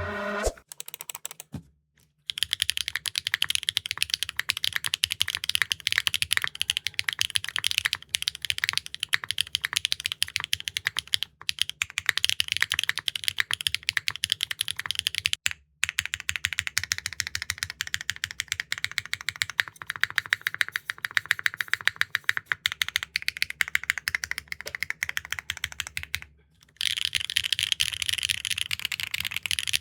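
Neo65 Core Plus mechanical keyboard with HMX linear switches being typed on fast and continuously, a dense run of keystroke clacks. The typing drops out briefly about 2 s in, around the middle and a few seconds before the end, as the takes change.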